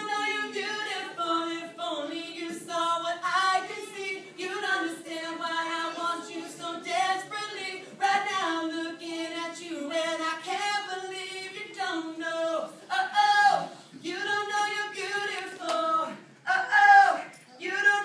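Unaccompanied singing, a woman's voice to the fore, in short phrases with no instruments behind it.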